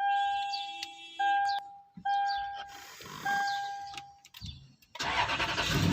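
An electronic ding chime from the 2010 Toyota Land Cruiser sounds about four times, each ding fading away, with a few faint clicks between. Near the end a loud rushing noise takes over.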